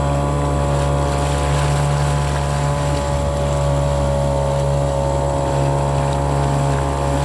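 Boat motor running steadily at constant speed, a loud unbroken drone.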